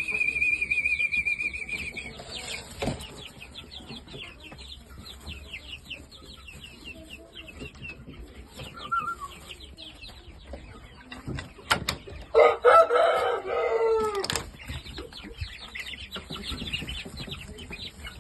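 Shamo chicks peeping steadily in a brooder pen, opening with a high trilling call. A little past the middle a rooster crows loudly for about two seconds, and a few sharp knocks sound around it.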